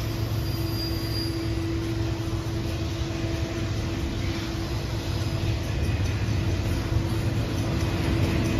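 Double-stack intermodal container cars rolling steadily past, their wheels rumbling on the rails. Over this sounds the steady ring of a Griswold/RACO mechanical crossing bell, which fades a little midway and comes back near the end.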